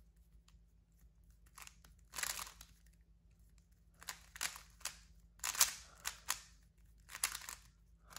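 Valk Power M 3x3 speed cube being turned quickly during a solve: bursts of fast clicking layer turns, broken by short pauses.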